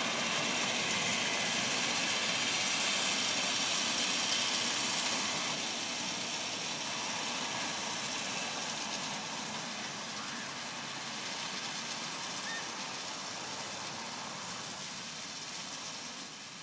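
Tractor towing a gang of cylinder (reel) mowers across grass: a steady hissing engine-and-mower drone that grows gradually quieter after about five seconds as the machine moves away.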